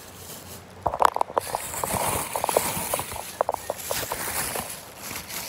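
Irregular sharp clicks and knocks of hard plastic being handled, a dense run starting about a second in and thinning out near the end.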